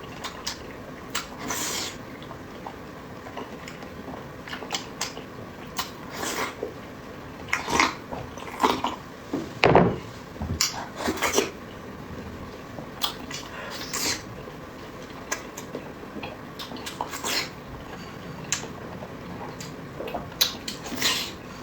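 Close-miked eating sounds: wet chewing, lip-smacking and slurping in irregular short bursts.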